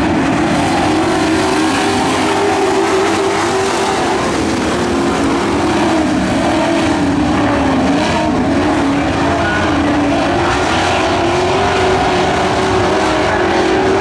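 Several dirt-track pro stock truck engines racing together on a dirt oval, their pitch rising and falling as the trucks go through the turns and down the straights.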